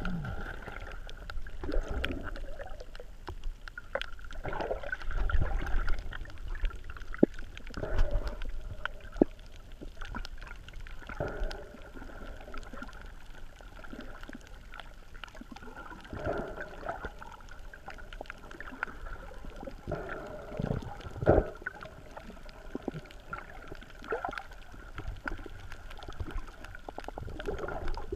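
Underwater sound picked up by a submerged camera on a shallow coral reef: water moving around a snorkeler, swelling and easing irregularly every few seconds, with scattered faint clicks throughout.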